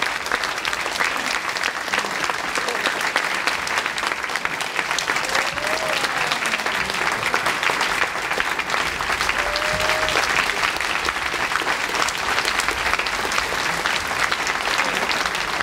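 A large crowd applauding steadily, the dense clapping of many hands holding at an even level.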